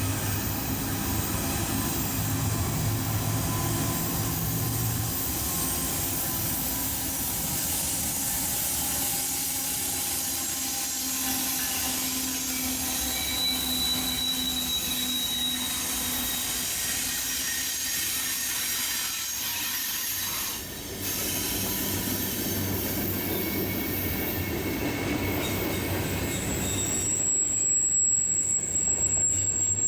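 A train's cars rolling past on the rails, steady and continuous, with thin high-pitched wheel squeals coming and going. A shrill squeal starts near the end.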